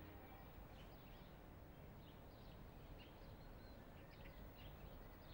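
Near silence: quiet room tone with faint, scattered high chirps.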